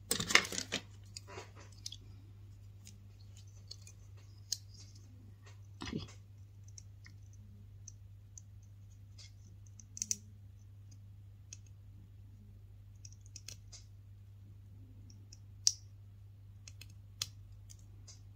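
Small scissors snipping thin clear plastic, trimming the edges of a miniature bottle piece: single sharp clicks every few seconds, after a short clatter of handling at the start, over a low steady hum.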